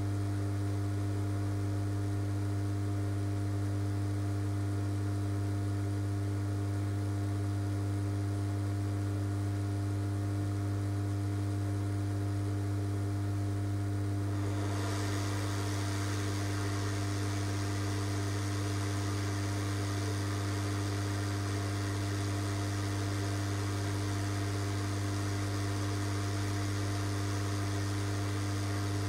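Steady electrical mains hum, a low buzz with higher overtones. About halfway through, a steady hiss joins it and holds.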